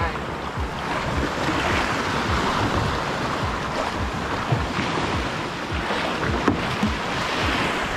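Wind buffeting the microphone in uneven low gusts over the wash of sea water around a kayak.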